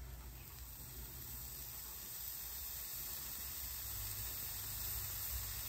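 Shredded Oaxaca cheese sizzling on a hot flat-top griddle: a faint, steady hiss that slowly grows louder as more cheese goes down.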